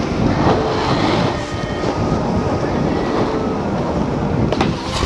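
Skiing down a packed-snow slope: a continuous loud scraping rumble of snow under the skis.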